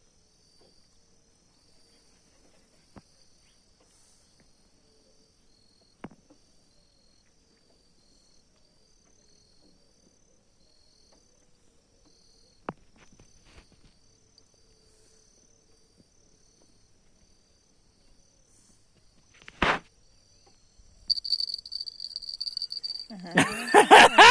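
Insects, crickets by their sound, chirping faintly in a steady pulsing pattern, with a few isolated sharp clicks. Near the end louder noise comes in, and then a person's voice.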